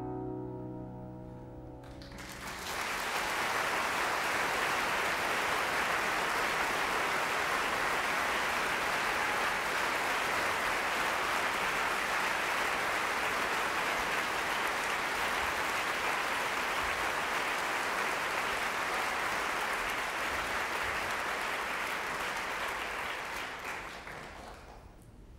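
The last notes of a solo grand piano die away, and about two seconds in an audience breaks into sustained applause that holds steady for some twenty seconds before tapering off near the end.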